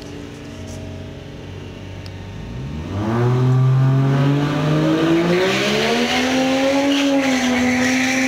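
Drag cars, among them a Ford BA Falcon XR6 Turbo with a turbocharged straight-six, holding steady at the start line, then launching about three seconds in. The engines become much louder and climb steadily in pitch for several seconds under full throttle, then level off.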